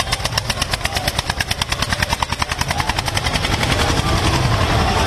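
Diesel tractor engine running close by with a rapid, even chugging knock, which fades into a steadier engine and crowd rumble near the end.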